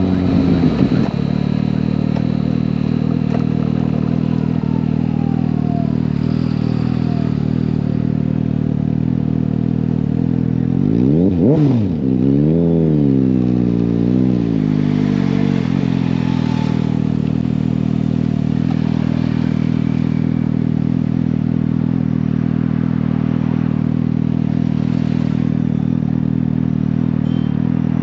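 Suzuki GSX-S750 inline-four with an Akrapovic slip-on exhaust. The revs drop off in the first second and settle into a steady idle. About midway there is one sharp rev blip and a couple of smaller ones, and then it idles steadily again.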